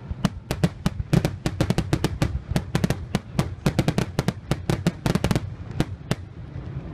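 Fireworks going off in a rapid string of sharp bangs and crackles, several a second, stopping about six seconds in.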